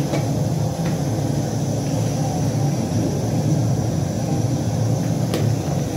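A steady low rumble, with a couple of light clinks of a metal spoon against a steel tray: one about a second in, one near the end.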